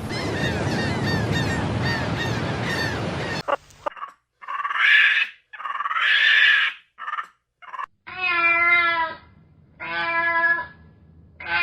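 Small birds chirping over a steady rushing background, cut off abruptly about three seconds in. Then a domestic cat gives a few short, raspy cries followed by two long, wavering meows, with a third starting at the end.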